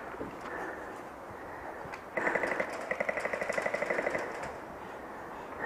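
Airsoft electric gun firing a full-auto burst of about two seconds, starting about two seconds in: a rapid, even rattle of shots with a motor and gearbox whine under it.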